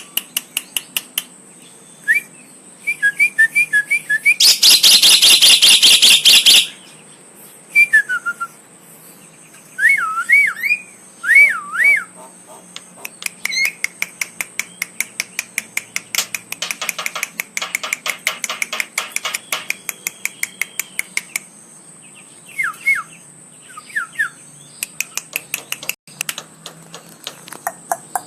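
Javan myna calling: short wavy whistles, one loud harsh screech about five seconds in that lasts about two seconds, and long runs of rapid sharp clicks.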